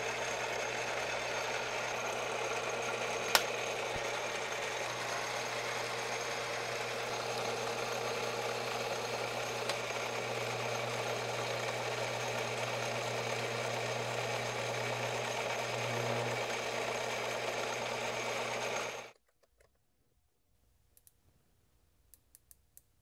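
Metal lathe running while its tool turns down a brass bar to a shoulder: a steady motor hum with the hiss of the cut and one sharp click a few seconds in. The sound cuts off suddenly near the end, followed by a few faint ticks as a micrometer is closed on the turned part.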